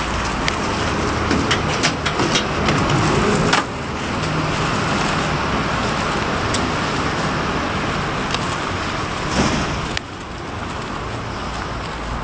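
Steady hiss of road traffic on wet pavement, with scattered small clicks and knocks. The level drops suddenly about three and a half seconds in and again near the end.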